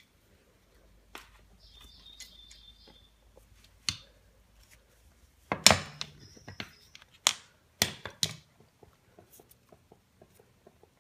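Large lever-type crimpers closing a copper lug onto heavy battery cable: several sharp metal clicks and knocks, the loudest a little past the middle, with two brief high squeaks from the tool.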